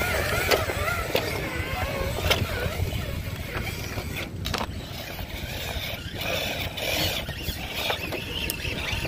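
Wind rumbling on the microphone, over the faint whine of an RC rock crawler's electric motor and gears and scattered clicks of its tyres and chassis on rock.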